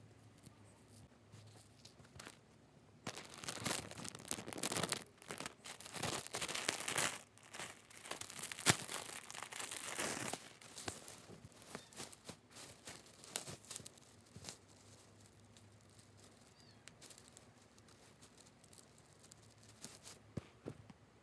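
Crinkly material handled by hand: several seconds of dense crinkling and rustling, then scattered light rustles and small clicks.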